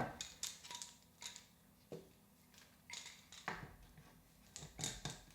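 Faint, irregular clicks and knocks of sheet metal and clamps being handled as the sheet is bent around a template and clamped in place.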